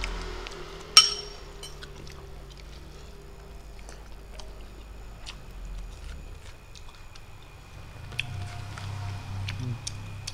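Eating at a plate: a metal spoon clinks sharply once against a ceramic plate about a second in, then scattered light clicks of fingers working rice on the plate and of chewing.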